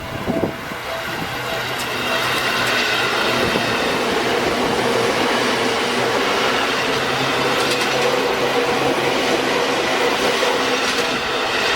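Seibu Shinjuku Line electric commuter train passing over the level crossing: a steady rumble of wheels on rail and motor hum that swells about two seconds in and holds until near the end.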